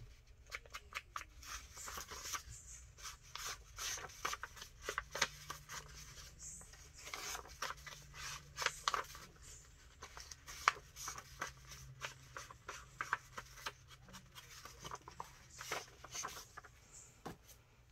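Paper edges being distressed: quick, irregular scraping strokes of a tool rasping along the edge of card stock.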